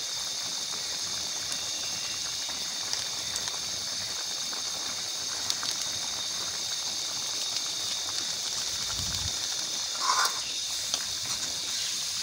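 Mutton karahi gravy sizzling and simmering in a karahi wok: a steady high hiss with faint scattered crackles. A brief louder scrape comes near the end.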